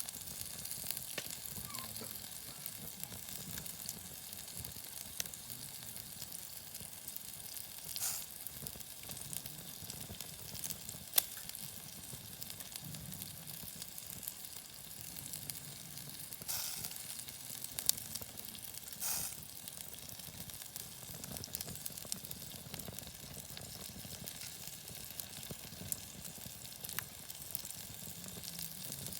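Lamb chops sizzling on a small iron griddle over a wood fire: a steady frying hiss broken by a few sharp pops.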